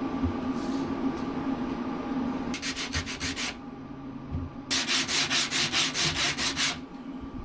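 Wood being hand-sanded in quick back-and-forth strokes, in two runs: a short one, then after a pause a longer one of about ten strokes.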